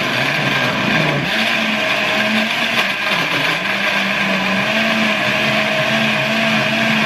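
Countertop blender running steadily at speed setting 4, its motor whirring as it purées spinach, celery, avocado and plant milk into a green shake. The motor's pitch wavers slightly with the load.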